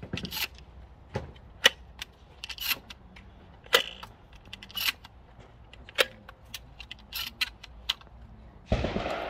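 Gunfire on an outdoor shooting range: sharp cracks at irregular intervals, roughly one a second, some with a short echo. Near the end, a louder rushing noise comes in.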